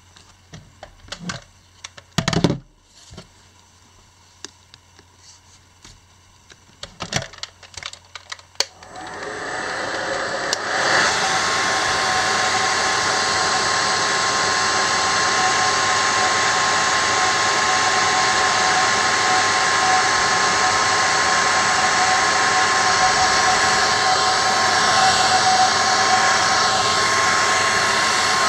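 A few sharp clicks and taps of plastic prying picks working at a phone's back-glass edge, then about nine seconds in a hair dryer switches on and runs steadily, a loud rush of air with a steady whine. It is heating the Sony Xperia Z1's glued-on back glass to soften the adhesive so the panel can be lifted.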